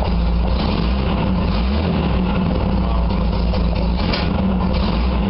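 Wolseley 6/90's 2.6-litre BMC C-series straight-six engine running steadily at idle, just started on the key.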